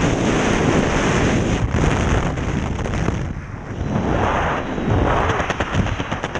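Freefall wind blasting over the camera microphone during a skydive, a loud steady rush with a short lull about three and a half seconds in. Near the end it breaks into a rapid flutter, several beats a second.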